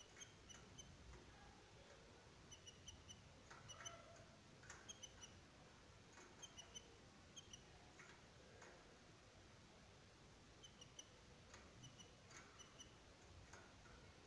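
Canaries in a cage giving faint, short high chirps, often two or three in quick succession, with a few soft clicks between them.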